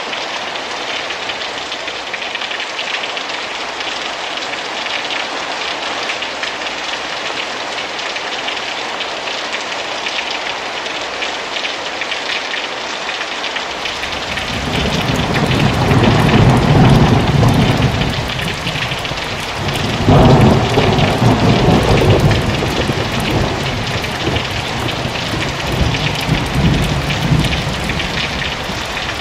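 Heavy rain falling steadily. About halfway through, rain streams and drips off the eaves of a thatched roof, and two long rumbles of thunder follow a few seconds apart.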